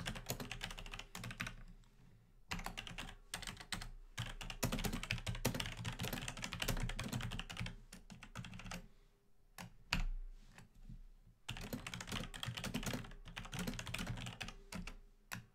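Typing on a computer keyboard: quick runs of key clicks, broken by a short pause about two seconds in and a longer pause past the middle.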